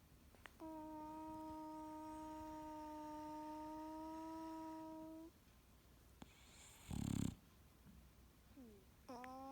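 Sleeping English bulldog making noises through its nose: a long, steady, whistling whine that lasts about five seconds, then a short loud snore about seven seconds in, and near the end another whine that slides up into a steady tone.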